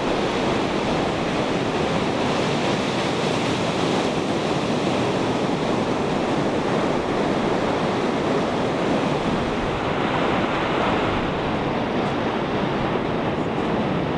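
Ocean surf breaking and washing onto a beach: a steady rush of waves with no distinct single breaks standing out.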